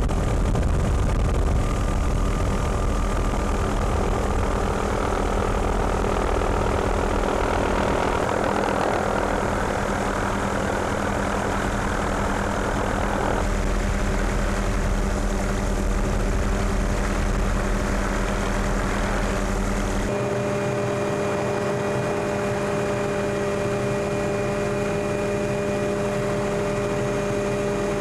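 Helicopter in flight, heard on board: steady engine and rotor drone with a steady whine. The tones shift abruptly about halfway through and again about two-thirds of the way through.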